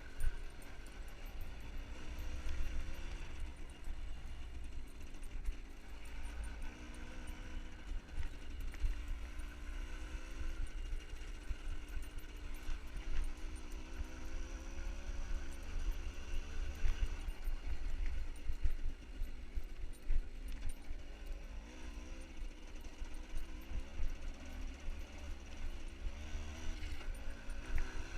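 A motorbike-type engine running, its pitch rising and falling with changing revs, over a heavy low rumble.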